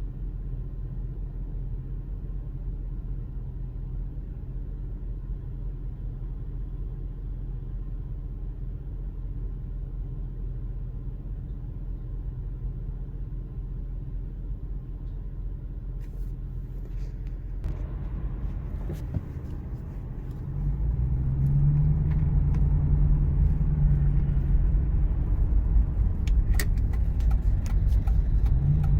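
Heavy road traffic: a steady low rumble of car engines that grows louder about 20 seconds in, with a few sharp clicks in the last part.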